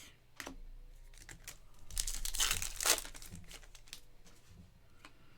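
A foil trading-card pack wrapper being torn open and crinkled, with the main tear about two seconds in and small clicks and rustles of handling around it.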